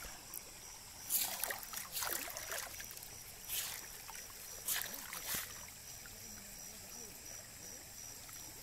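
Shallow water splashing and sloshing in four short bursts between about one and five and a half seconds in, as something is moved through it.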